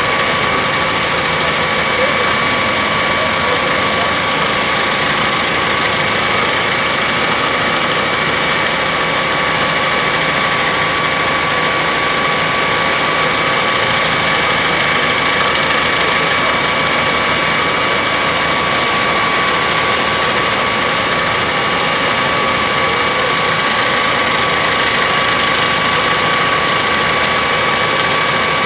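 Engines of Harsco maintenance-of-way rail machines idling at an even level, with a constant high whine over the engine noise.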